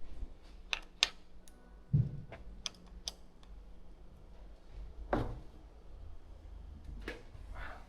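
Scattered sharp clicks and knocks from bike parts and tools being handled on a workbench, with heavier thuds about two and five seconds in.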